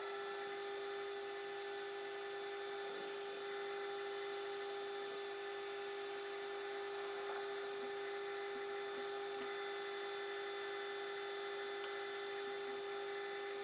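Metal lathe running steadily, its motor and drive giving a constant whine with no change in pitch.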